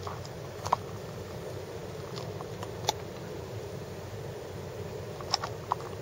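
Steady low rumble of traffic and vehicle noise heard from inside a car's cabin, broken by four short, sharp clicks.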